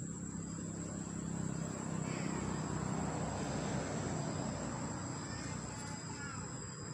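Insects droning steadily on one high pitch, with a second, fainter high drone joining about two seconds in and a few faint short chirps.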